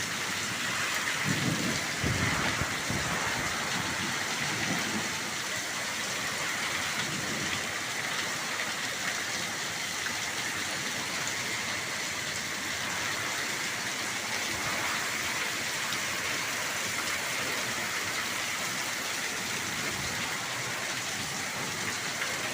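Heavy rain falling steadily in a thunderstorm, with a brief low rumble of thunder a second or two in.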